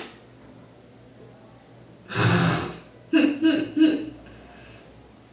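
A woman laughing: a sharp breathy burst about two seconds in, then three short voiced laughs in quick succession.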